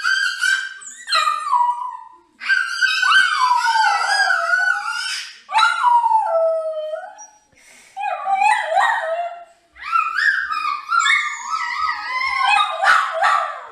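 A dog howling: a run of long, wavering howls, several of them sliding down in pitch, with short breaks between them.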